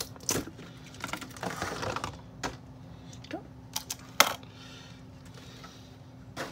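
Hard plastic pieces of a doll stand clicking and clattering as they are handled, with a short stretch of rustling; the sharpest click comes about four seconds in.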